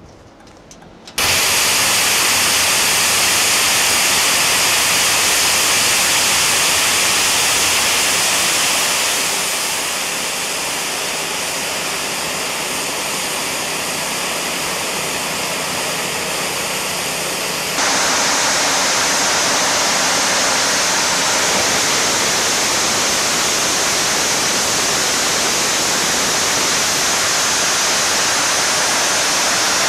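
Homemade gas-turbine jet engine running at full power on a larger 13 GPH fuel nozzle: a loud, steady rushing roar that starts abruptly about a second in, eases slightly about nine seconds in and comes back up abruptly about eighteen seconds in.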